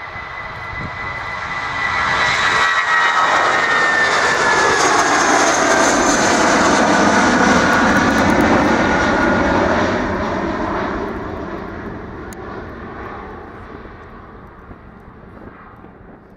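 Airbus A319 jet airliner climbing out at takeoff thrust, its engine whine sliding down in pitch as it passes close, then fading as the aircraft climbs away.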